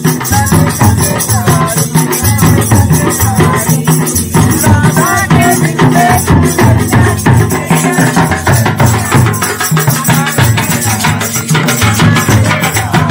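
Nagara kettledrums, clay-bodied and rope-netted, beaten with sticks in a fast, driving rhythm, with a hand-shaken jingling rattle over them: Holi folk drumming.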